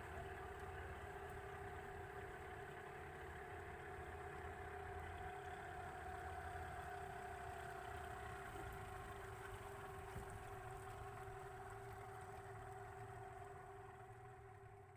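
Small boat engine running steadily at an even speed, heard faintly, with a low rumble under a steady hum; it fades away near the end.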